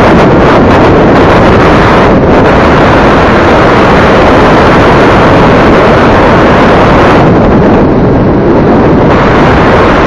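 Wind buffeting the built-in microphone of an EKEN H9R action camera on a moving scooter: a constant, very loud rumbling roar near clipping that buries every other sound. The top hiss eases briefly a little after halfway, then comes back.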